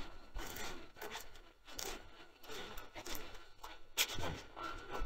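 Irregular rustling and scraping, with a sharp knock about four seconds in.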